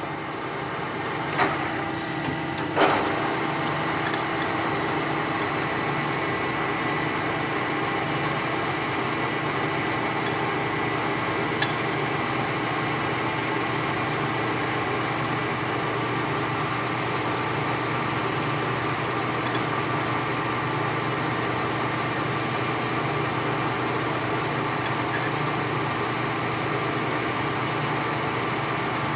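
A machine-shop machine starts up and runs steadily with an even hum and whine. Two sharp knocks come in the first few seconds.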